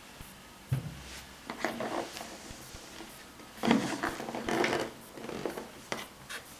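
Trainers being handled at close range: irregular rubbing and scuffing against the shoe's materials, with a light knock about a second in and a sharp click near the end; the loudest stretch of rubbing comes a little past the middle.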